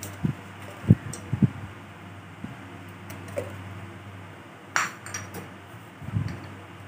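Metal spatula and spoon knocking against a large aluminium wok of curry: a few dull knocks in the first second and a half, a sharper metallic clink just before five seconds, and more knocks near the end, over a steady low hum.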